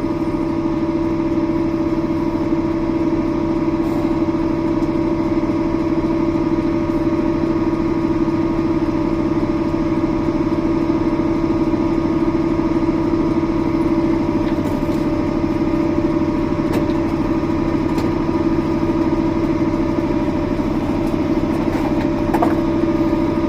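A vehicle engine running steadily at a constant pitch, with a strong, unchanging hum.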